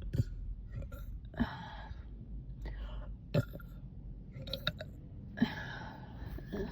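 A girl burping after a meal, bloated: about four short burps a second or two apart, two of them trailing off into breathy noise.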